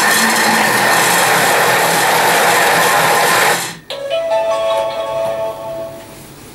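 Thermomix TM5 motor and blades running at speed 5, chopping a thick bacon jam, with a steady loud whine that cuts off suddenly about three and a half seconds in. Fainter steady tones follow.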